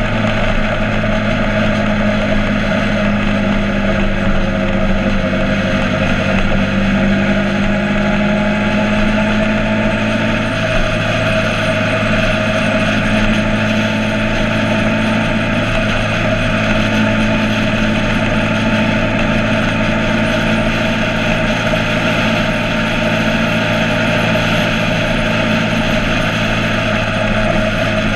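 Motorcycle engine running at a steady, even pitch, with no revving.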